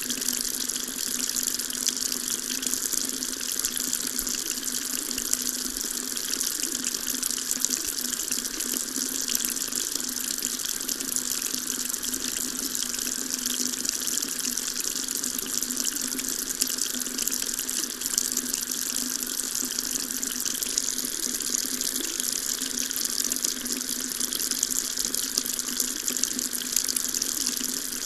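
Tap running steadily into a sink, an even splashing hiss with no change.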